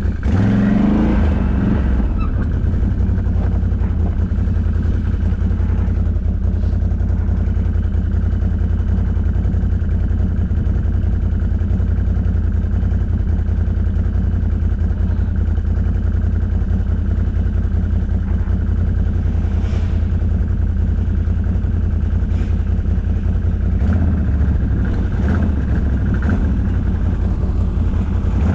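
ATV engine running steadily under load, with a short rise in revs about half a second in.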